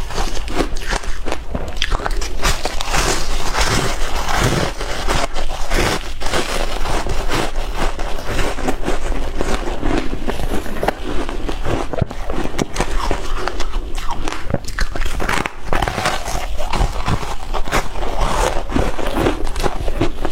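Shaved ice being bitten and chewed close to the microphone: dense, irregular crunching and crackling without a pause.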